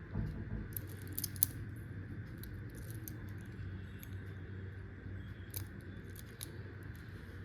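Scattered light clicks and clinks from a wristwatch and its packaging being handled, with a soft thump at the start and a sharper click about a second and a half in, over a steady low hum.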